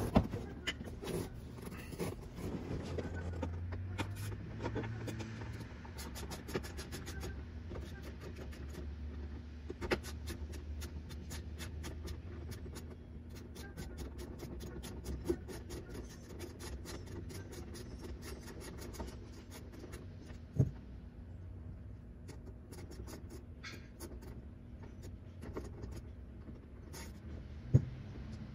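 Hand tools working under a car's dashboard: runs of quick ratchet clicks and scattered clicks and knocks as the lower steering-column panel's screws and 7 mm nuts are undone, with a few sharper knocks and a steady low hum underneath.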